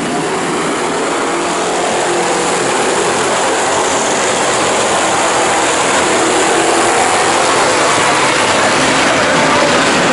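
A pack of dirt-track stock cars racing together under power, their engines making a dense, rasping mass of sound that grows steadily louder.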